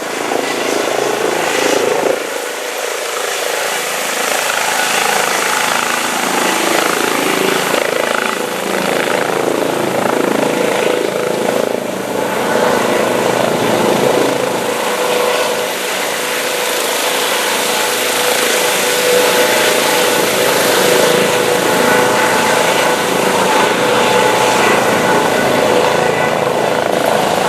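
Helicopter running, loud and steady, with a held whine over its rotor and engine noise.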